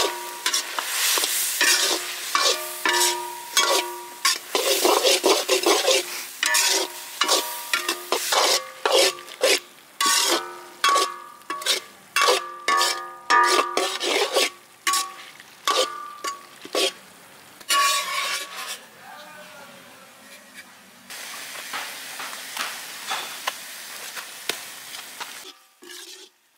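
Metal ladle scraping and knocking around a large kadai of frying mutton, the pan ringing briefly after many strokes, over a steady sizzle. The mutton is frying down nearly dry in the last stage of a chukka. The strokes thin out after about 18 seconds while the sizzle goes on.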